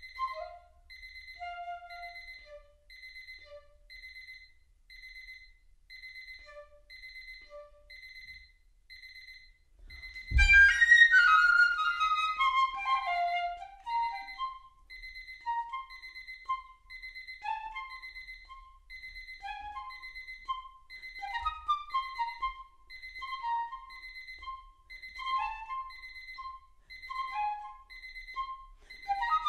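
Piccolo playing sparse, short detached notes over an alarm clock's steady, evenly repeating electronic beep. About ten seconds in comes a thump, then a loud, fast descending run on the piccolo, followed by quick short figures and falling notes while the beeping goes on.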